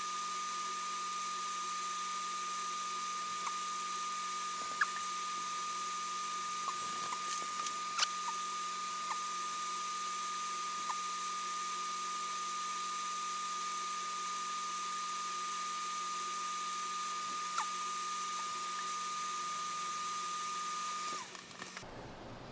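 Steady high-pitched whine over a constant hiss from running bench equipment during microsoldering, with a few faint ticks from work on the board. The whine cuts off suddenly near the end.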